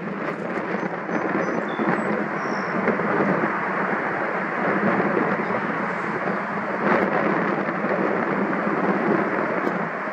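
Steady jet-engine rumble from an Airbus A350-900's Rolls-Royce Trent XWB engines at taxi power. It swells slightly over the first couple of seconds, then holds even.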